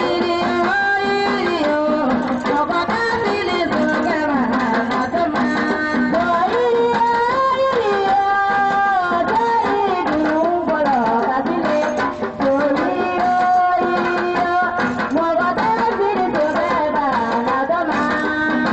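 Drum-led music with singing: hand drums play a steady pattern under a gliding vocal melody.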